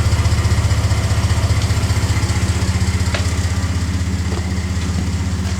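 Truck engine idling through a FloPro 4-inch exhaust system with a Twister and no exhaust tip: a loud, steady low rumble with an even pulse.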